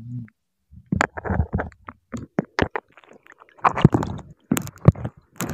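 Shallow seawater sloshing in irregular bursts, with scattered knocks, heard close up with the camera held under the water while wading; the sloshing gets busier in the second half.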